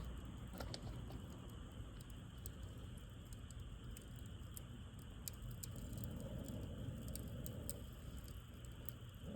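Wood fire burning, with sparse faint crackles and pops over a low steady noise.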